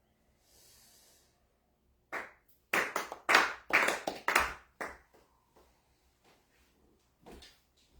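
Several people clapping their hands in prayer, a cluster of sharp claps not quite in unison starting about two seconds in and lasting about three seconds. These are the ritual prayer claps that close a Konkokyo worship.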